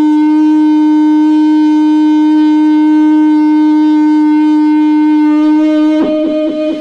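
A man imitating a train whistle with his mouth into a microphone: one long, steady, horn-like note that breaks off about six seconds in.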